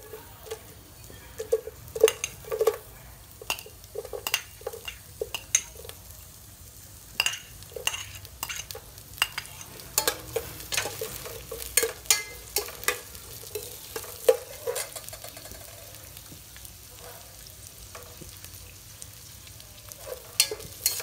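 A metal spoon knocking and scraping against a stainless-steel pot while stirring chopped shallots, garlic, lemongrass and lime leaves frying in a little oil, with a faint sizzle underneath. The knocks come irregularly, with a quieter stretch for a few seconds in the second half.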